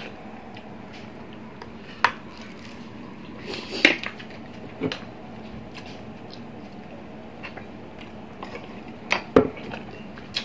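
A handful of sharp clinks and taps of spoons and a glass on a table while balut is eaten, the loudest about four seconds in and near the end, over a low steady hum.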